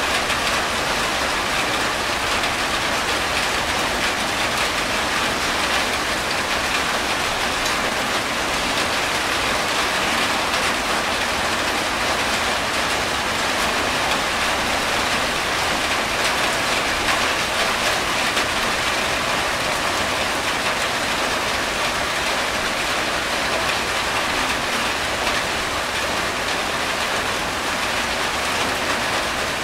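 Steady rain falling on a corrugated tin roof, with water streaming off the roof's edge.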